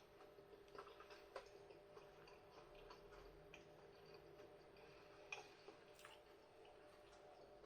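Near silence: quiet room tone with a few faint, short clicks scattered through it.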